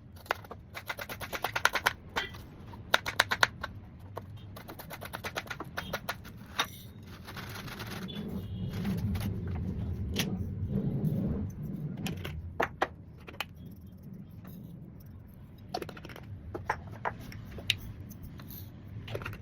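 Kitchen clatter: quick runs of sharp knocks like a knife chopping on a cutting board, then scattered single knocks, with a low rumble in the middle.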